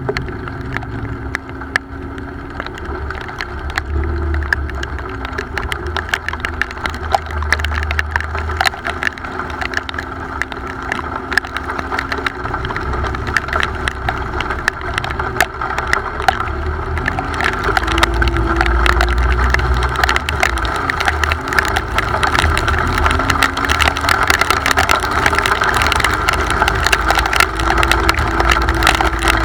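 A motor vehicle's engine running steadily, with a pitch that shifts slightly and many sharp crackling ticks throughout. The low rumble grows louder in the second half.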